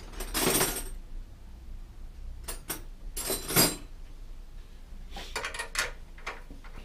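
Light metal clinks and clatter of tools and bicycle parts being handled, in scattered short bursts with a quick run of clicks about five seconds in.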